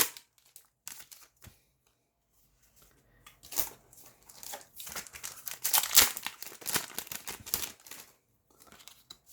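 Foil wrapper of a Yu-Gi-Oh Eternity Code booster pack crinkling and tearing as the pack is ripped open, in a run of crackles from about three to eight seconds in, after a few faint ticks.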